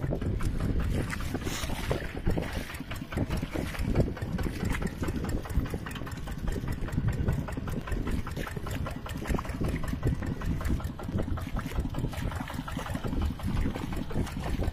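Mini tractor's engine running steadily, with a rapid, even pulsing beat.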